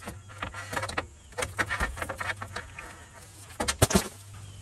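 Scattered metal clicks and knocks as solar-panel mounting clips and aluminium racking rails are handled, with a sharp double knock about four seconds in, over a steady low hum.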